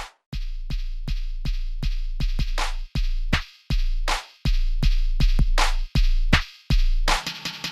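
Electronic background music with a drum-machine beat: a deep held bass note under sharp rhythmic hits and rising swept noises, stopping briefly a few times.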